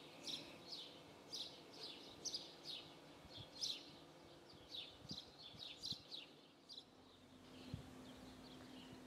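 A small bird chirping over and over: short, high, falling chirps about two a second, thinning out after about seven seconds. A faint steady hum comes in near the end.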